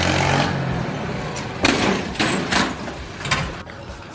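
A motor running, its pitch falling away at the start, followed by a few short, loud knocks or clatters.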